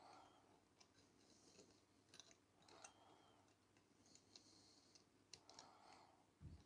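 Near silence with scattered faint light clicks of brass clock parts being handled and fitted between the plates of an antique Ansonia clock movement.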